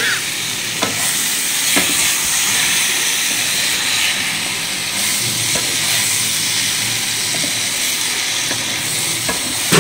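Boiled eggs and potatoes frying in masala and oil in a pan: a steady sizzling hiss, with a few light clicks of the spatula against the pan as they are stirred.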